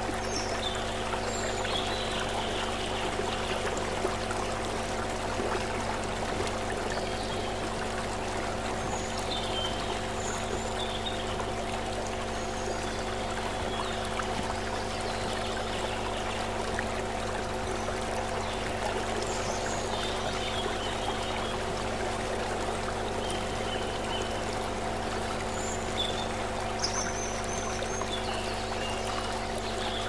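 Shallow stream running over rocks, a steady rush and trickle of water. Underneath it, a steady low hum of several held tones, with short high chirps now and then.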